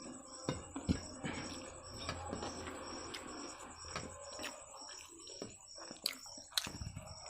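Close-up eating sounds: a person chewing and slurping egg noodles, with a few sharp clicks from a fork or the plate, over a faint, regular high ticking about twice a second.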